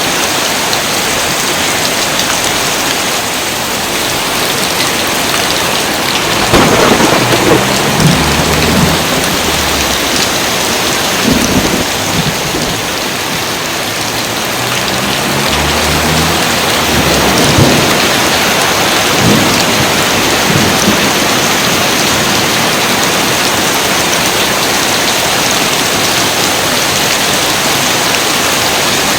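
Steady heavy rain, with two rolls of thunder rumbling low under it: the first starts about six seconds in, the second around sixteen seconds in.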